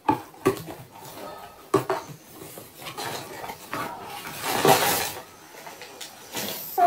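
Cardboard shipping box opened by hand: knocks and scrapes as the flaps are worked open, then a louder rustle of paper packing pulled out about four to five seconds in.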